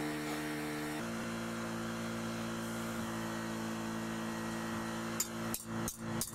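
A steady hum, then from about five seconds in a hand hammer striking a red-hot steel blade on an anvil: about four quick blows, each with a ringing clink.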